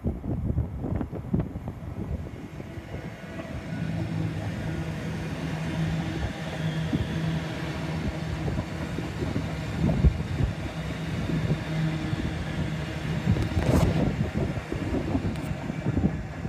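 Two Hitachi Class 385 electric multiple units running through the station past the platform, with a steady low hum from the traction equipment and wheel-on-rail rumble. A couple of sharp clacks come from the wheels over the rails, one about ten seconds in and one a few seconds later. Wind buffets the microphone throughout.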